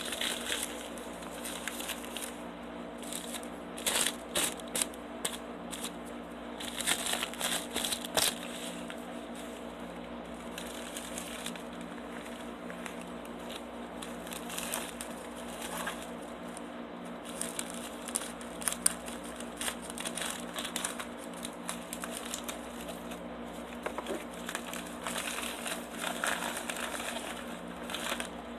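Plastic and paper packaging of a small toothpaste pack crinkling and rustling as it is handled and unwrapped. The crinkling comes in irregular bursts, loudest about four to eight seconds in. A steady low hum runs underneath.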